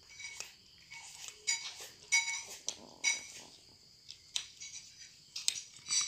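Cats eating dry kibble from a glass bowl: irregular crunching, with sharp clinks against the glass that ring briefly.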